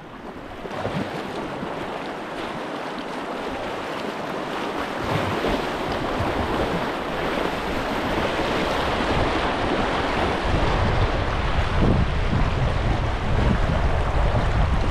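Fast river water rushing and splashing around a kayak moving through a small rapid, with wind buffeting the microphone. It grows louder, and a low rumble comes in about two-thirds of the way through.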